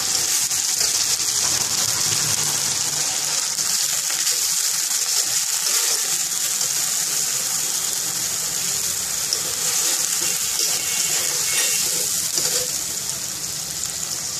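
Chopped onions with ginger-garlic paste sizzling in hot oil in a wok: a loud, steady hiss.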